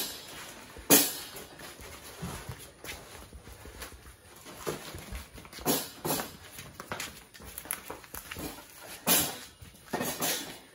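Hot umu cooking stones knocking and clattering against each other as they are moved and piled, a series of irregular sharp knocks. The loudest come about a second in and again near the end.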